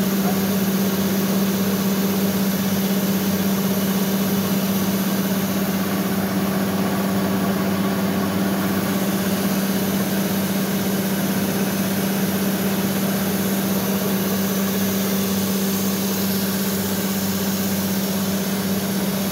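A heavy machine tool machining a large rotating steel shaft under flowing coolant. It makes a steady low hum over an even hiss that does not change.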